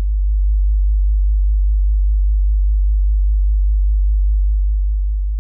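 A deep, steady electronic hum, a pure low tone like a sine wave, with a faint fast flutter above it. It begins to fade near the end.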